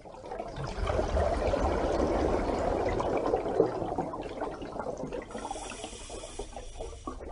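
Rushing, churning water sound, swelling in over the first second and easing somewhat after about four seconds.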